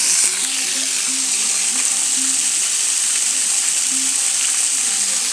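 Waterfall at a dam, water rushing and splashing in a steady hiss, with faint music underneath.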